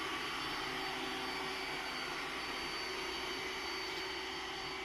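iRobot Roomba s9+ robot vacuum running with its suction motor on as it drives back-and-forth passes across the floor: a steady rushing whine with a high steady tone over it.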